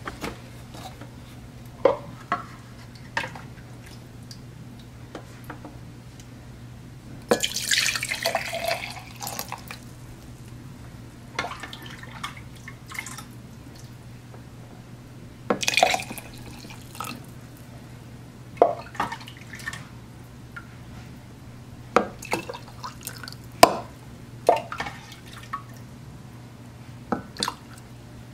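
Kitchen handling sounds: scattered clinks and knocks, with a longer splash of liquid being poured about seven seconds in and a shorter one about halfway through, over a steady low hum.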